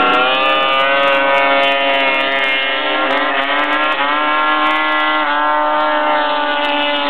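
Snowmobile engines running hard at high revs, their pitch sagging slowly and then climbing again about three seconds in.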